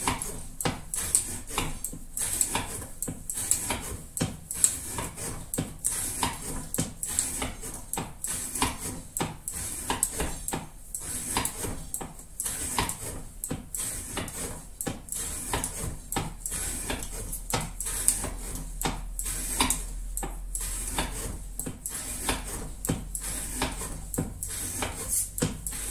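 A rapid, irregular series of small clicks and clinks, two or three a second, with a low hum coming in about sixteen seconds in.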